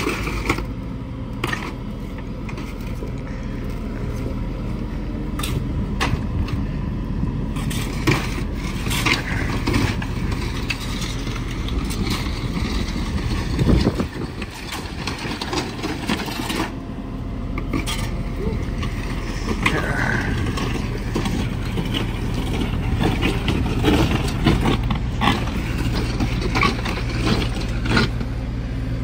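A heavy machine's engine running steadily while its auger drill bores into rocky ground. Frequent knocks and clanks come through as the bit hits rock.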